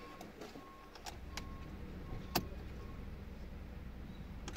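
Light clicks and faint short beeps in a Ford Focus cabin over a low hum, the sharpest click about two and a half seconds in, while the ignition is on and the engine is not yet running.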